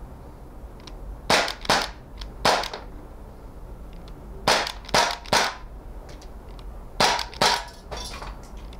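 Umarex Walther P38 CO2 blowback BB pistol firing about nine shots in three quick groups of two or three, each a sharp snappy pop. The steel BBs strike the tin can targets, and one can is knocked down near the end.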